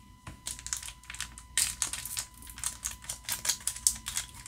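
Foil trading-card booster pack crinkling as it is handled in the hands, a quick run of sharp crackles that is loudest about a second and a half in.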